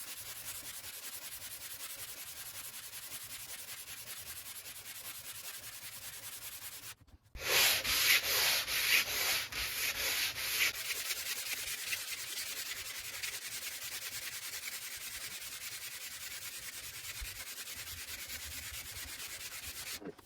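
Hand sanding: an abrasive sheet rubbed back and forth over a chalkboard surface in a steady rasp. About seven seconds in, after a brief break, the strokes become much louder and distinct, roughly two a second, for about three seconds, then settle back to the softer steady rasp.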